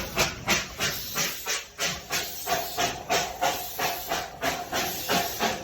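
Darjeeling Himalayan Railway narrow-gauge steam locomotive working under steam, its exhaust chuffing steadily at about three beats a second with hissing steam. A faint steady tone runs through the middle of the passage.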